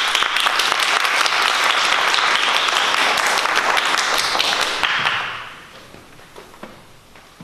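Audience applauding, a dense patter of clapping that dies away about five and a half seconds in.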